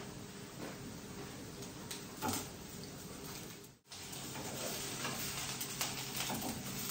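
A rice roti frying in a nonstick pan on a gas stove: a faint steady sizzle, with a brief louder sound just after two seconds. The sound drops out for a moment about four seconds in, and then a spatula scrapes and prods the pan over a denser sizzle.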